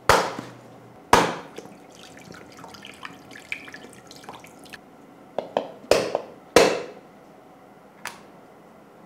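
Back of a knife knocking on a roasted coconut's shell to crack it open, sharp knocks that come in a few groups, with coconut water dripping and splashing into a cloth-lined bowl between them.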